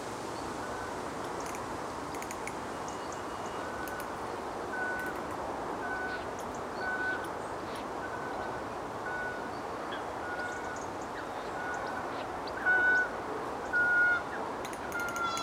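Steady rushing of wind across the lake and reeds, with a short steady-pitched note repeating about once or twice a second, the two loudest near the end. A quick run of fast clicks comes at the very end.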